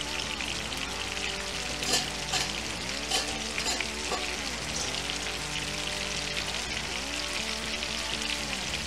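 Minced garlic frying in hot olive oil in a nonstick skillet over a gas burner, toasting to infuse the oil: a steady sizzle, with a few sharp pops about two to four seconds in.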